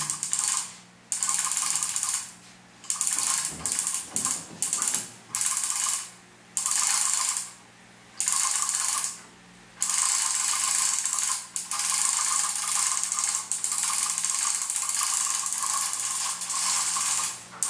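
Manual hoist's ratchet pawl clicking rapidly as the hoist is worked in bursts to raise a lathe of about 100 kg, with short pauses between strokes for the first half and then near-continuous clicking.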